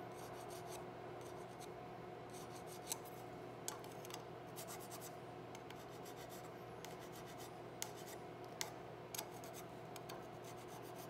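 A hand file making light, short scraping strokes on a flintlock rifle's rear sight fitted in the barrel's dovetail, with a few small metallic ticks. The strokes come in brief groups, over a steady low hum.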